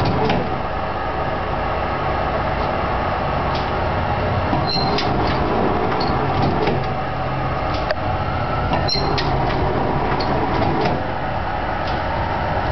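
Kotai 2002 clamshell die cutter running under its motor, its platen swinging closed against the head and opening again. A steady drive hum is broken by scattered sharp clicks and clanks from the mechanism.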